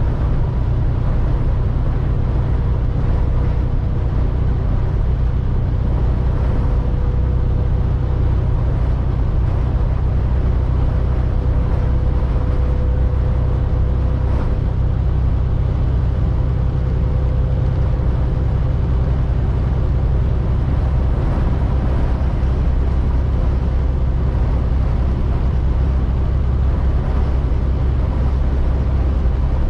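Semi truck running steadily at highway speed, a loud even low rumble of engine and road noise heard from inside the cab, with wind rushing over it and a faint steady whine.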